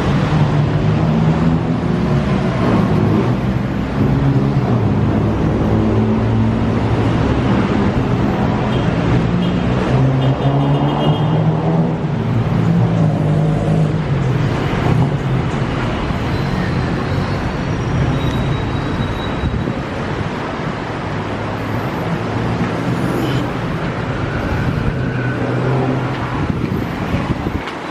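Road traffic: vehicle engines running, with a low hum that shifts in pitch during the first half.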